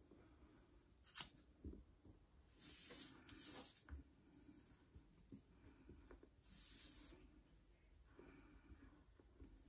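Wax crayon scratching over paper while tracing around a cut-out paper template, heard as a few short, faint scratchy strokes, the longest about three seconds in and again near seven seconds.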